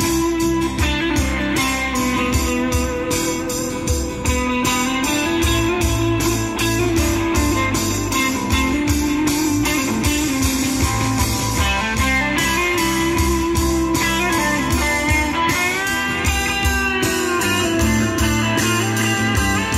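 Live band playing an instrumental break: guitars over bass and a steady drum beat, with a lead line that bends in pitch near the end.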